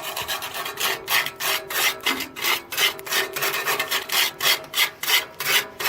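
Sandpaper scrubbing back and forth on a rusty exhaust pipe, about three strokes a second, taking off the loose rust around a hole before it is patched.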